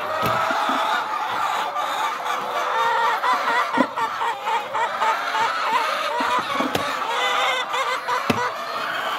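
A flock of hens clucking and chattering together in the coop, a dense continuous cackle of many overlapping birds. A few sharp knocks come as the metal nest boxes are handled, the loudest about four seconds in.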